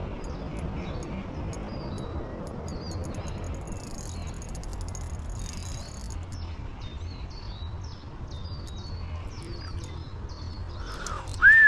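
Small birds singing with repeated short, high chirps over a steady low rumble. Just before the end a loud single tone leaps up and then slides down.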